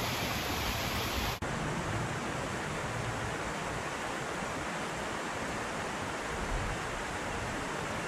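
Steady rushing of a shallow creek's flowing water, with a brief drop-out about a second and a half in before the same even rush goes on.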